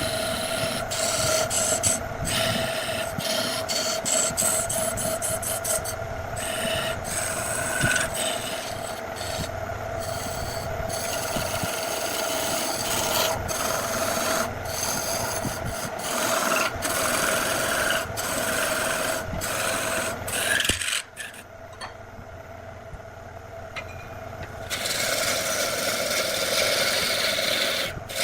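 Wood lathe running with a tool cutting and scraping the spinning wood: a steady motor hum under a rasping, scraping noise that jumps abruptly at many points. It drops quieter a little past two-thirds of the way through, then comes back louder and hissier near the end.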